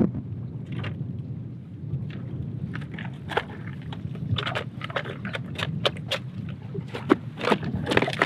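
Plastic fly boxes and tackle clicking and knocking as they are handled in a hard tackle case, a quick string of sharp taps that thickens in the second half, over a low wind rumble.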